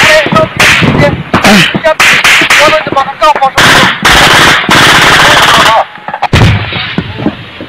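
Bursts of automatic gunfire, very loud and distorted, with one long unbroken burst about halfway through. Men's voices shout between the bursts.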